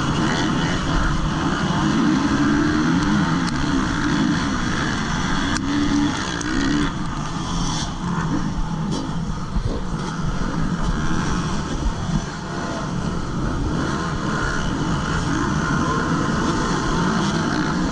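Several MX2 motocross bike engines revving at once, their pitches rising and falling over one another, with the helmet-cam rider's Honda CRF250 four-stroke among them.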